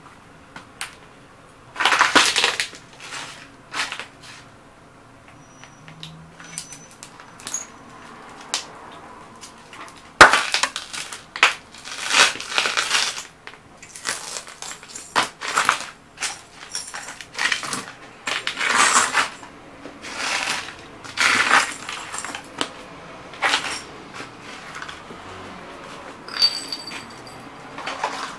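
Cowboy boots stomping on vintage glass radio vacuum tubes and their cardboard boxes on concrete: glass shattering and crunching underfoot in repeated, irregular bursts. The loudest, sharpest break comes about ten seconds in.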